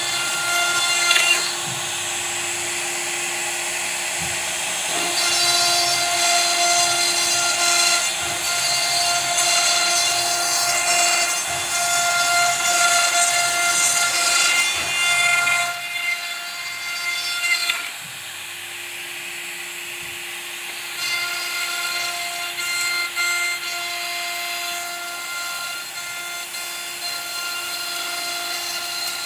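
CNC router spindle running at a steady whine while its bit cuts through a wood board, with a rough cutting noise from the chips. The cutting noise drops off just past the middle for a few seconds, then picks up again.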